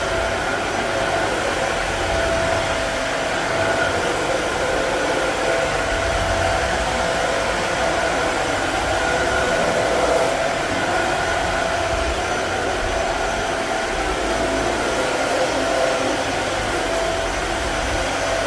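Dyson Ball Animal 2 upright vacuum cleaner running at full suction over carpet: a steady rush of air with a constant motor whine.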